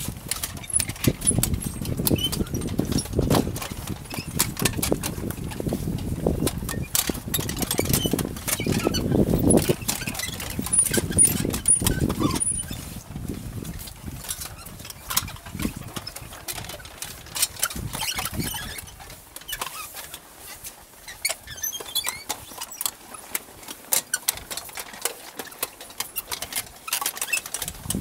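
Wind buffeting the microphone in gusts for about the first half, then easing off, over a scatter of footsteps and small knocks on a dirt-and-stone lane.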